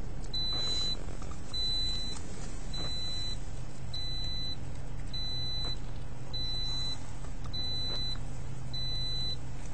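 A car's door-open warning chime: a high electronic beep about half a second long, repeating a little less than once a second, over a steady low hum.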